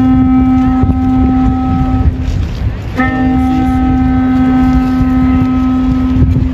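Long, steady held notes from traditional Korean ceremonial horns in a royal guard procession band: one note ends about two seconds in, and another starts about a second later and is held to the end, over a low background rumble.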